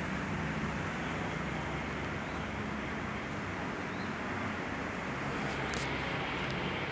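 Two 56-inch Mitsubishi Electric C56-GW industrial ceiling fans running: a steady rush of air from the blades over a faint low hum.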